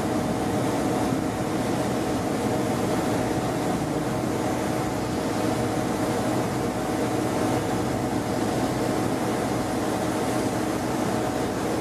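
Steady hum inside the carriage of a Class 153 diesel multiple unit, from its underfloor Cummins diesel engine and running gear, with a few steady tones over an even noise.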